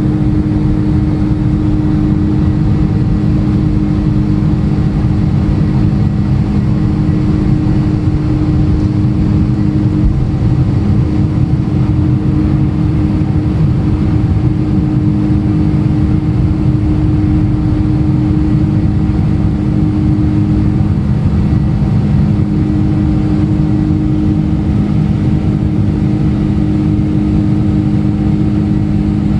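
Airliner jet engines running: a loud, steady low rumble with a steady drone in it.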